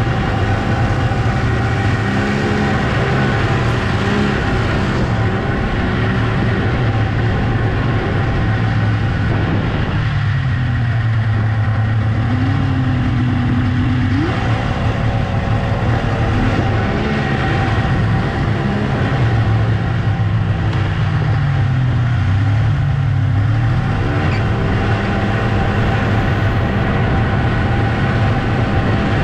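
1997 Polaris XLT snowmobile's three-cylinder two-stroke engine running under way along the trail. The engine note eases off about ten seconds in and climbs back up a few seconds later, then dips and rises again near the end.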